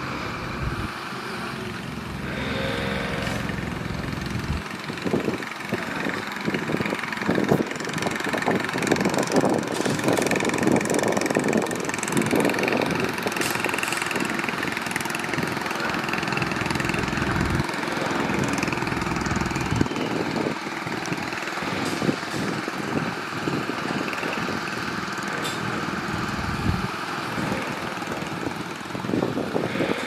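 Diesel engines of heavy earthmoving machinery running steadily, with irregular clanks and knocks throughout, thickest in the first half.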